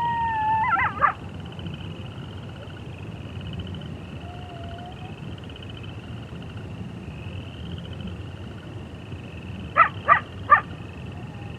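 Coyote howl ending in a short broken, wavering flourish about a second in, then three quick yips near the end. Frogs and toads trill steadily throughout.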